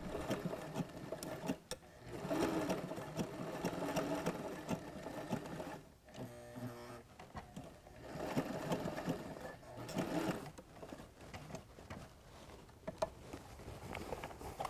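Sailrite Ultrafeed LSZ-1 walking foot sewing machine stitching through thick multi-layer Dacron sailcloth. It runs in spurts of rapid stitching with short pauses between them.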